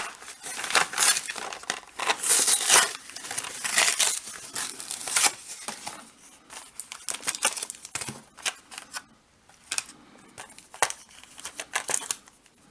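Plastic blister packaging of a trading-card pack crinkling and tearing as it is pulled open by hand, in dense bursts for the first half, then sparser crackles.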